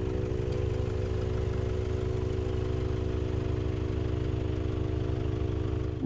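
A four-wheel-drive vehicle's engine running at a steady, even speed.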